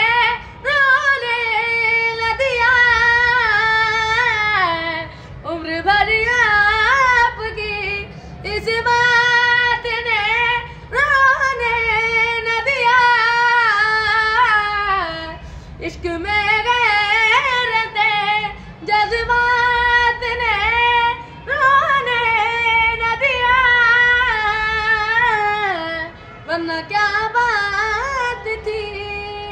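A boy singing a high, ornamented melody without clear words, in long held phrases that waver and bend in pitch, with short breaks between phrases every few seconds.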